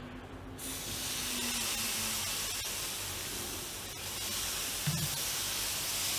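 Uttapam batter of ground samo millet, sago and yogurt sizzling steadily as it is ladled onto a hot nonstick tawa and spread into a round, the hiss starting about half a second in. A light knock, most likely the ladle against the pan, comes about five seconds in.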